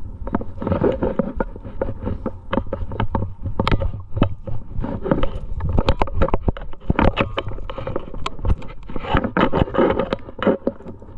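Climbing hardware (carabiners and cams on a harness rack) clinking and knocking irregularly. Hands and shoes scrape and scuff on the rock, over a steady low rumble.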